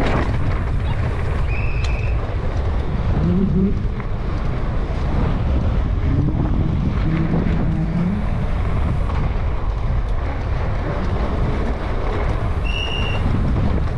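Wind buffeting the camera microphone on a mountain bike descending a sandy dirt downhill trail, over a steady rumble of tyres and bike rattling on the ground. Two brief high-pitched squeaks, about two seconds in and near the end.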